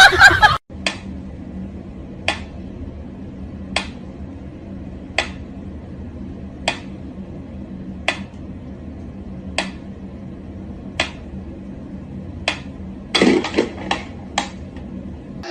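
Mechanical pendulum metronome ticking slowly and evenly, about one sharp tick every second and a half, with a brief louder noise near the end.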